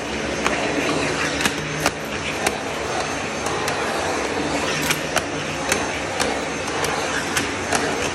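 Vacuum cleaner running steadily while its floor nozzle is pushed along stair treads, with many short sharp knocks as the nozzle and wand bump against the steps.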